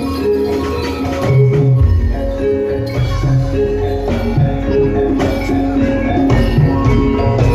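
Javanese gamelan music for a jaran kepang dance: struck bronze keyed instruments play a ringing melody over low drum strokes.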